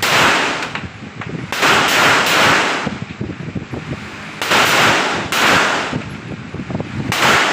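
A string of single gunshots, about six or seven, fired at uneven intervals over several seconds. Each shot is sharp and loud and has a short echoing tail.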